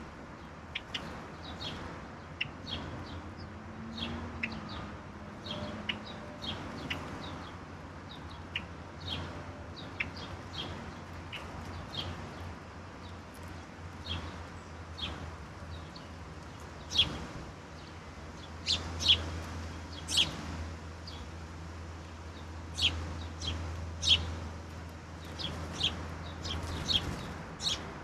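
Backyard songbirds giving many short, sharp chirps and calls, scattered irregularly and more frequent and louder in the second half, over a steady low hum.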